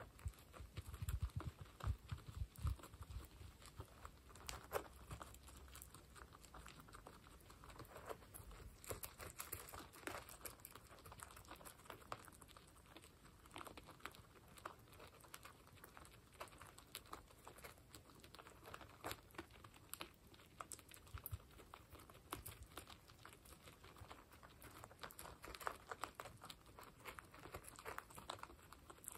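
Guinea pigs crunching dry pellets from a bowl: a continuous, irregular patter of small crisp crunches and clicks, with a few soft low thumps in the first few seconds.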